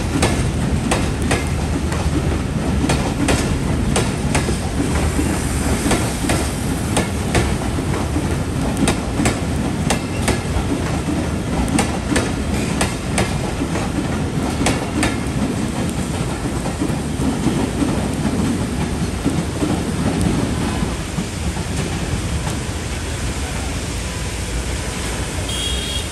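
Intercity passenger train coaches rolling past close by, a dense rumble with wheels clicking over the rail joints. Past the middle the clicks thin out and the rumble eases as the train draws away.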